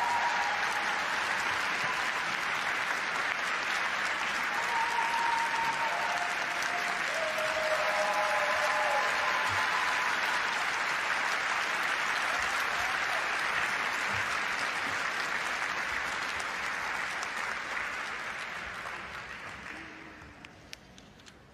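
Arena crowd applauding steadily, fading away near the end.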